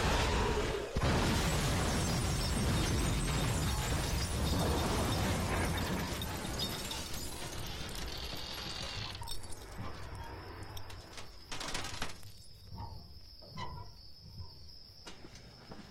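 Film sound effects: a loud rushing, rumbling noise for about the first nine seconds. It then drops to a quieter stretch with a thin steady high tone and scattered small clicks and tinkles of glass around a wrecked bus.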